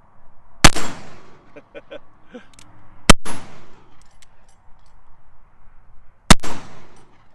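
Three shots from a .36-caliber Colt Navy cap-and-ball revolver firing black-powder paper cartridges, spaced about two and a half to three seconds apart, each with a short echoing tail. Faint clicks come between the shots.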